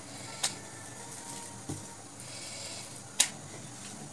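Wooden rolling pin knocking against a wooden rolling board as a round of soft dough is rolled out: two sharp knocks about three seconds apart and a lighter one between them, over a low steady hiss.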